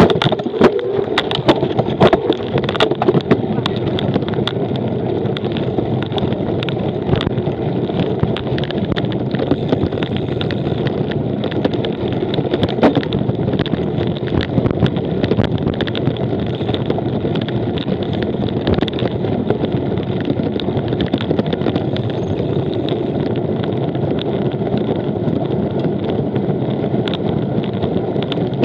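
Bicycle being ridden in a cyclocross race: steady rolling and rattling noise of tyres and bike over the course, with a flurry of sharp clicks and knocks in the first few seconds.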